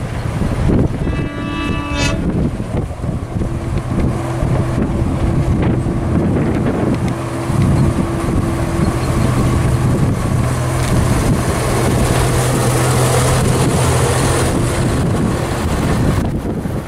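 Miniature railway diesel locomotive sounding a short horn blast about a second in, then its engine running steadily as it hauls its coaches past.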